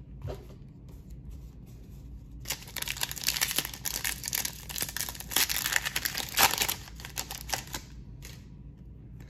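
Foil trading-card pack being torn open and crinkled by hand: a dense crackling from about two and a half seconds in until near the end, after a few soft taps.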